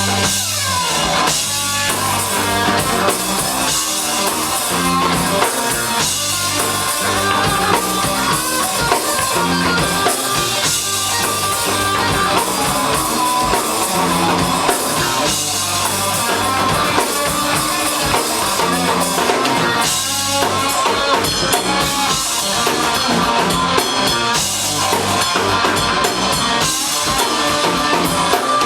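Live rock trio playing an instrumental passage: guitar, bass guitar and drum kit, with no vocals.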